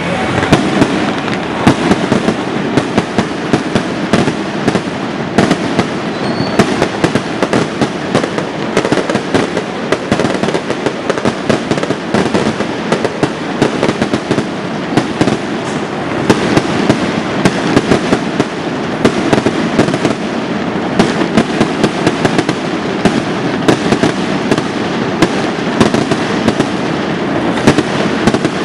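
A loud, unbroken barrage of firecrackers and fireworks going off together: a dense crackle of rapid pops with sharper bangs scattered all through it and no pause.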